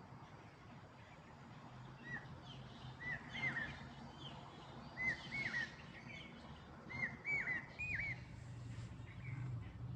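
Birds chirping: short calls that dip and hook back up, in small clusters of two or three every couple of seconds, over a low steady hum.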